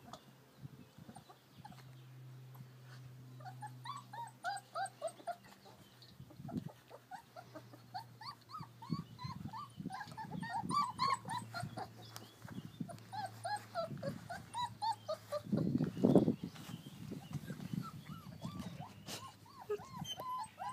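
American Akita puppies whimpering and squealing in many short, high-pitched whines that come in clusters. About three-quarters of the way through there is a louder rustling thump.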